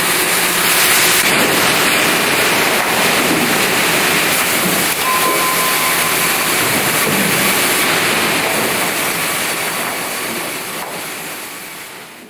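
OHI MCC-type vertical band saw running: a loud, steady mechanical noise that fades out near the end.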